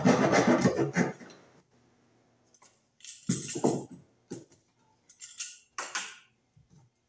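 A hand tool's metal blade scraping and gouging into wood, widening a cut-out for an electrical box, for about a second. After a pause come a few short knocks and clinks.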